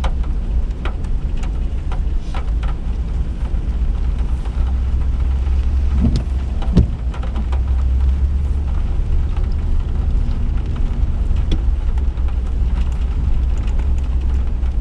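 Inside a moving vehicle's cabin: a steady low road rumble while driving slowly, with scattered light ticks and a couple of duller knocks about six to seven seconds in.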